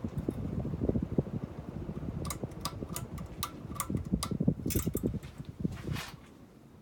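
Hunter Low Profile II ceiling fan running, its airflow buffeting the microphone with an uneven low rumble. From about two seconds in there is an even ticking, about three ticks a second. Both the ticking and the rumble drop away near the end.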